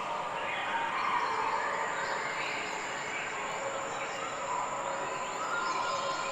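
High animal calls, wavering and gliding up and down in pitch, over a steady hiss.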